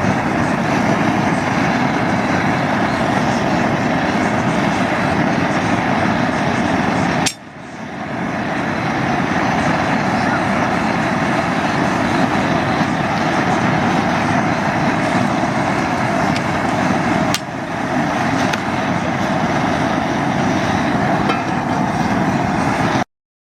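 Steady roar of a propane jet burner, a loud even rushing noise, in three stretches split by two sudden cuts, stopping abruptly near the end.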